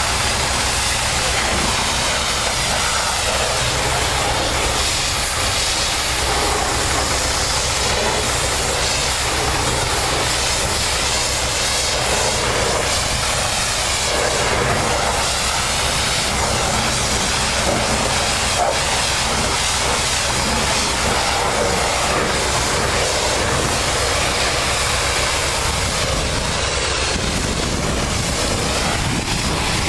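High-pressure water spray from a pressure-washer wand rinsing soap off a semi-truck cab: a steady hiss of water on metal over the constant low rumble of a running engine.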